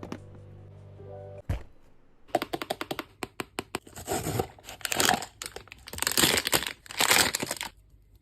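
Packaging being torn and crinkled open in quick rustling bursts and clicks, after a short stretch of background music at the start.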